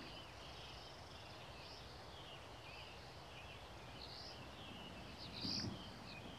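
Small birds chirping and calling over faint outdoor background noise. About five and a half seconds in comes a louder call together with a low thump.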